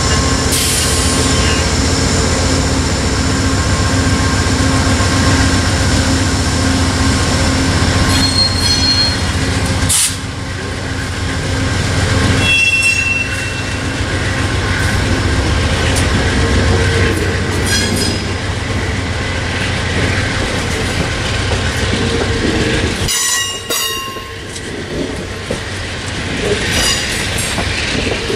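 Amtrak passenger train passing close by on a curve. A GE P42DC diesel locomotive's engine throbs for the first dozen seconds, then the cars roll past with steady wheel rumble and clatter. Several short, high-pitched wheel squeals are heard, typical of flanges on a curve.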